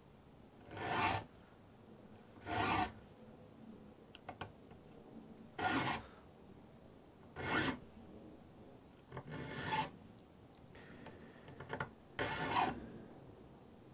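A saw file rasping across the teeth of a crosscut hand saw held in a saw vise: six slow strokes, mostly in pairs, roughly two strokes per tooth, with faint clicks between as the file is moved on. The file is old and getting dull.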